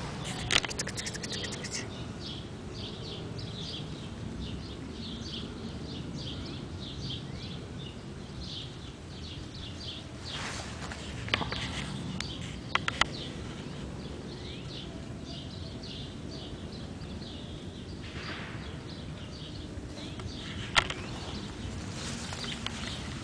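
Small birds chirping over and over, short high calls throughout, over low steady background noise. A few sharp clicks stand out, the loudest about three quarters of the way through.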